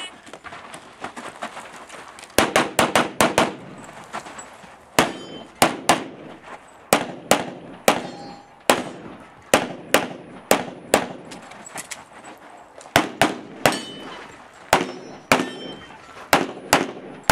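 Rapid pistol fire from a Limited-division competition handgun: quick strings of shots, mostly in pairs and short bursts, with brief pauses between them. The first shots come about two seconds in.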